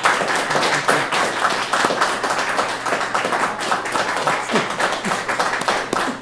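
Audience applauding: many hands clapping in a dense, steady crackle that breaks out suddenly.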